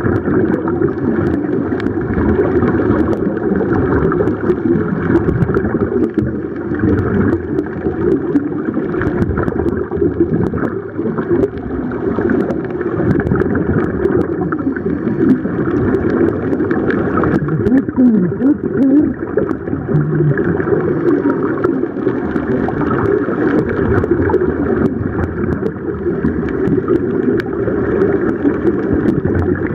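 Steady, muffled underwater rumble and gurgling, recorded by a camera submerged in the sea, with many small crackles of moving water and bubbles.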